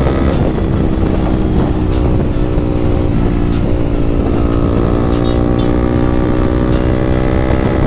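Yamaha MT-15's single-cylinder engine through a loud aftermarket exhaust, running at a fairly steady pitch while riding.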